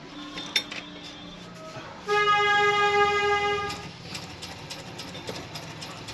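A loud, steady horn-like tone, held at one pitch for about a second and a half near the middle, amid faint clicking.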